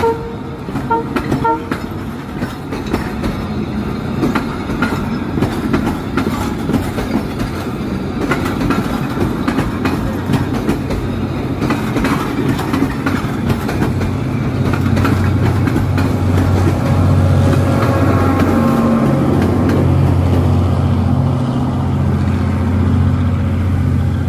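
Abu Qir passenger train's coaches rolling past on the rails, wheels clicking over the rail joints, with a few short horn toots in the first second or two. In the second half a steady low rumble builds and grows louder.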